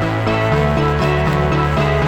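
Background music with a steady pulsing beat; the bass note changes about half a second in.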